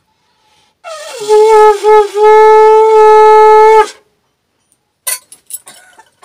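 A conch shell (shankha) is blown once as part of the puja. The note starts about a second in, slides down in pitch, wavers twice, then holds steady and very loud for about a second and a half before stopping abruptly. A few light clicks follow near the end.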